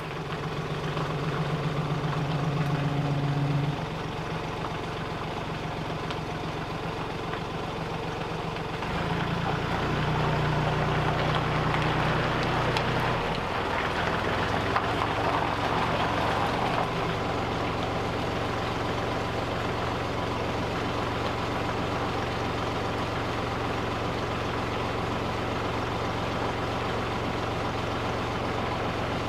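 A tractor engine running. Its speed shifts a few times in the first half, then it settles to a steady idle.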